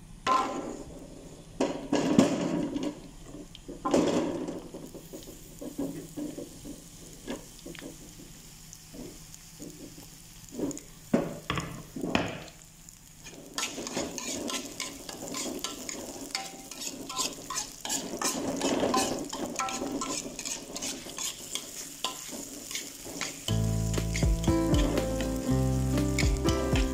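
Chopped shallots frying in oil in a wok, stirred and scraped with a metal spatula. The sizzling grows denser and louder about halfway through, and background music comes in near the end.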